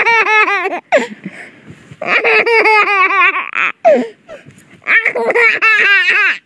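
Baby laughing in three rapid bouts of high-pitched 'ha-ha' giggles, with breathy gasps between the bouts.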